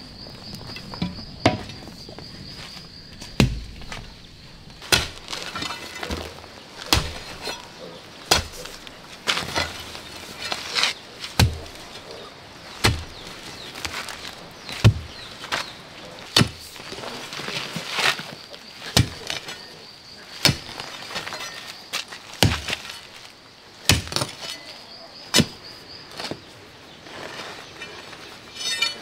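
A hoe and a shovel chopping and scraping into hard, stony soil, one stroke every second or so. A faint, steady, high insect buzz comes and goes behind it.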